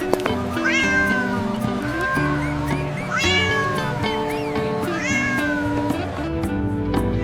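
A cat meowing three times, each call falling in pitch, over background music.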